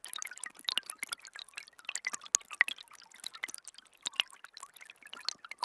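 Rain falling as many separate drops, landing irregularly and close together, with no thunder.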